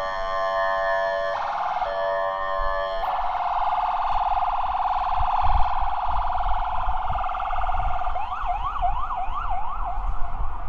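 Ambulance electronic siren switching between patterns. It opens on held tones that change pitch twice, turns to a rapid warble about three seconds in, and then to a fast up-and-down yelp from about eight seconds in, with a low rumble underneath in the later part.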